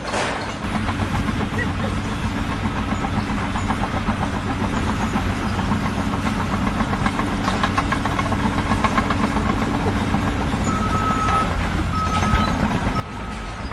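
A heavy machine's engine running steadily with a low hum and a fast rhythmic rattle. Two short high tones sound near the end, then the noise drops off suddenly.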